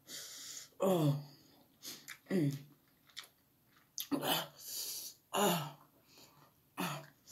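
A man reacting to very spicy noodles while eating: about five short groans that each fall in pitch, between breathy hisses of air drawn in and blown out through the mouth against the burn, with some chewing.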